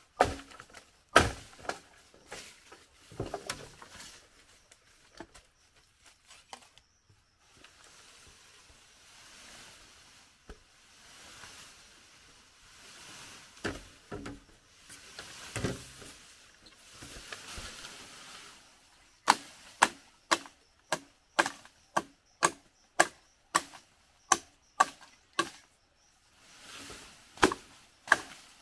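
Machete blade chopping green bamboo: one sharp strike about a second in and a few scattered knocks, then soft rustling of leaves as a bamboo pole is dragged through the undergrowth. In the second half comes a fast, regular run of chops, about two a second.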